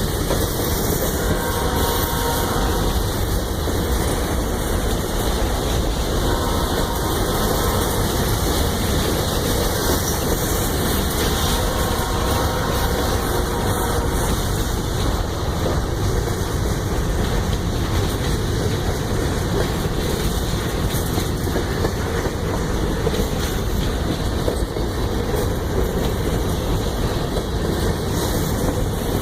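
A train rolling past with its wheels running on the rails, a steady, unbroken noise throughout.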